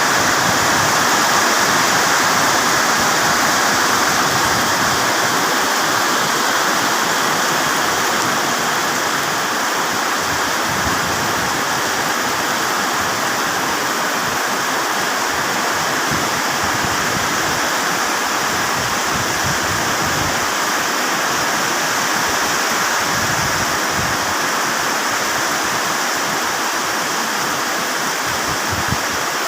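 Rain falling steadily, an even unbroken hiss of water that keeps the same level throughout.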